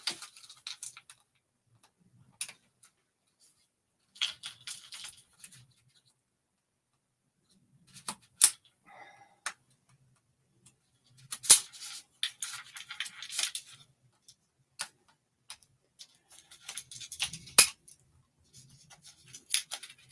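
Artristic studio easel's clamps and arms clicking and rattling as they are handled and adjusted during assembly, in short irregular spurts with a few sharp clicks.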